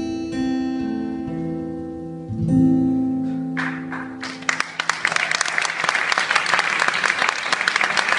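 Final guitar chords of a live song ringing out, with one last strum about two and a half seconds in. Audience applause breaks out midway and fills the rest.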